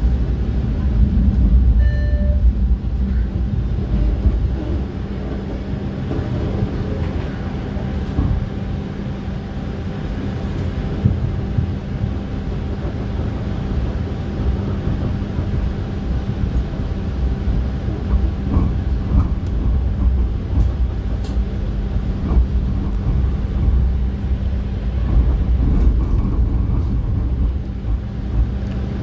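TTC streetcar running along its track: a steady low rumble with a constant hum over it and scattered clicks from the rails.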